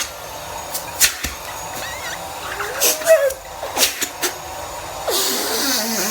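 Vacuum cleaner running with its hose attachment in use: a steady motor hiss broken by several knocks, with a louder rush of air about five seconds in.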